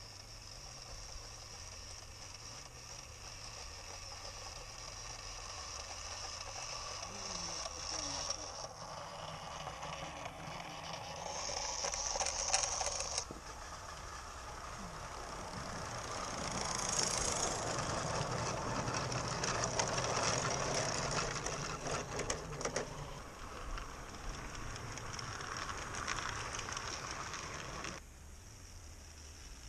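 A small 16mm-scale live-steam locomotive running along garden track, steam hissing and running gear rattling. It grows louder as it nears, twice over, and drops off suddenly near the end.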